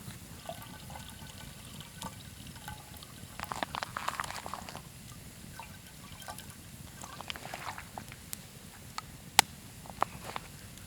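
Campfire crackling, with scattered sharp pops and a denser run of crackles about four seconds in, and one loud pop near the end.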